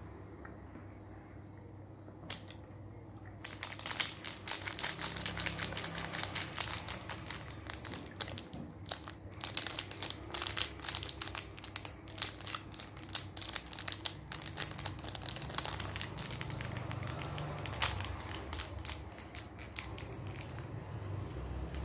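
Plastic food wrapping crinkling and crackling as it is handled, starting about three seconds in and going on in dense, irregular bursts.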